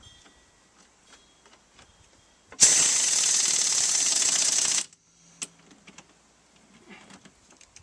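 Impact wrench hammering for about two seconds, running down a nut on the strut, with small tool clicks and taps before and after.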